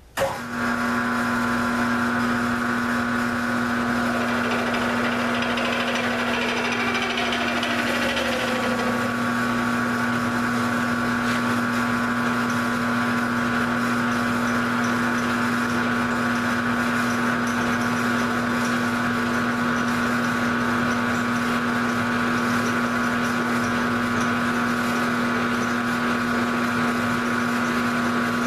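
Grizzly G0705 mill/drill switched on, the motor and spindle coming up a moment in and then running with a steady whine. The table is hand-fed under the cutter to face off the vise, with a changing, falling sound between about four and nine seconds in.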